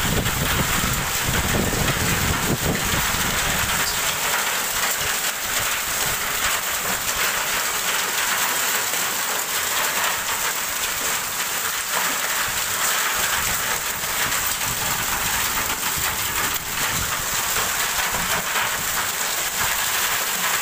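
Severe hail and rain pelting a courtyard floor and a metal sheet lying on it: a dense, steady patter of hailstones ticking and bouncing.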